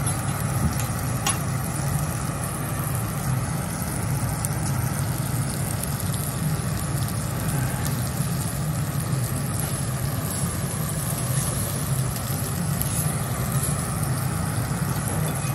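A steady low hum with an even hiss over it at a teppanyaki griddle: the ventilation running while wagyu steaks sear on the hot steel plate.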